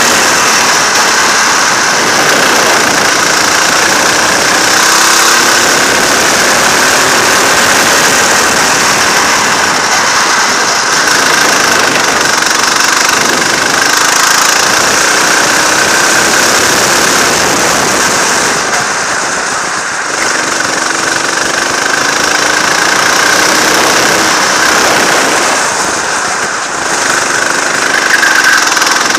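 Go-kart engine running hard and heard close up from on board, its revs climbing repeatedly along the straights. The engine briefly drops off twice, about two-thirds of the way through and near the end.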